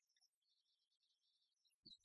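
Near silence: room tone, with one faint short knock near the end.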